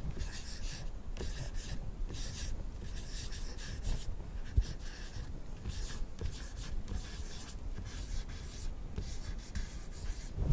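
Marker pen writing on a paper chart: a run of short, scratchy strokes with brief pauses between them.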